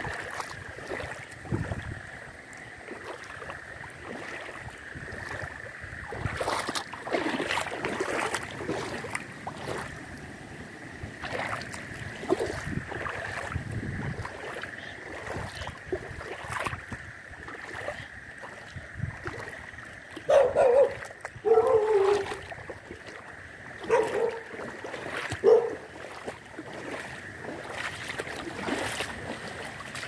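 Frogs calling in a steady high-pitched chorus over cyclone wind and rain noise. About twenty seconds in, four or five short, loud calls come over about five seconds.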